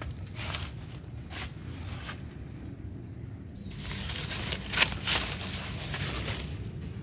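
Dry banana leaves rustling and crackling as they are pulled off a bicycle by hand. A few light rustles come first, then a dense crackling stretch in the second half with a couple of sharper snaps.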